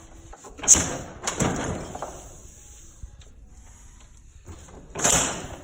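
Metal clank and scraping as the rod and gland are pulled out of a John Deere 310 backhoe's 4-in-1 bucket hydraulic cylinder barrel, the snap ring now held in its groove by packing so the cap can come free. One sharp knock comes about a second in, then scraping, and a louder scrape near the end.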